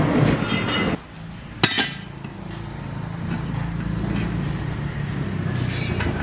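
A sharp metallic clink about a second and a half in, followed by an engine running steadily at a low, even idle.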